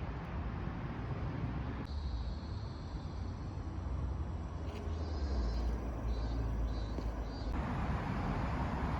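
Outdoor park ambience dominated by a steady low rumble. Through the middle a faint high-pitched insect buzz, a cicada, swells and fades in short repeated pulses.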